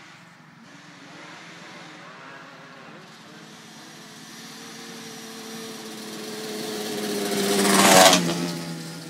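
Sport quad (ATV) engine approaching along a dirt road, growing steadily louder, then passing close by about eight seconds in with a rush of engine and tyre noise. Its pitch drops as it moves away.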